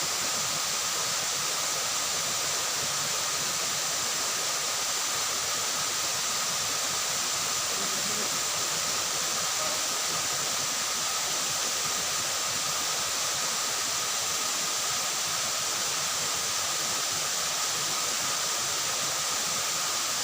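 Steady rushing of flowing water, an even unbroken hiss with two thin steady high tones running through it.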